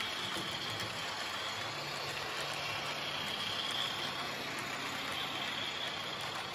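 Model railway trains running on the layout's track: a steady whir of small electric motors and wheels on the rails, with a faint low hum coming in about two seconds in.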